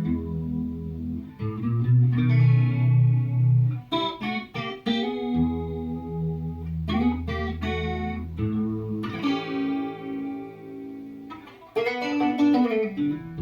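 Electric guitar played through a vintage Boss CE-1 Chorus Ensemble pedal: chords and notes struck about six or seven times and left to ring through the pedal's modulation, which is working after repair.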